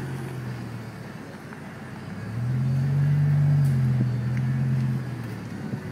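BMW E60 M5's S85 V10 running at low speed through an Active Autowerke Gen II exhaust: a deep, steady exhaust note. It swells louder for a couple of seconds in the middle, rising a little in pitch and then settling back.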